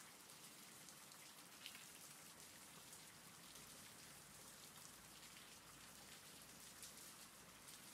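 Faint steady rain: an even hiss of falling rain with the odd slightly louder drop.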